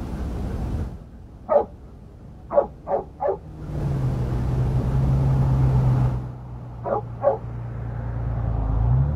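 A dog barking in short sharp barks: one, then three in quick succession, then two more later on. Under them a vehicle engine hums steadily from about a third of the way in, rising in pitch near the end.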